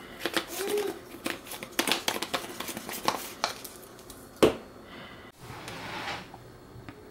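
Seasoning shaker shaken over a bowl of raw rabbit meat, with a wooden spoon among the pieces: a run of irregular quick clicks and taps, then one sharp knock about four and a half seconds in, followed by soft handling noise.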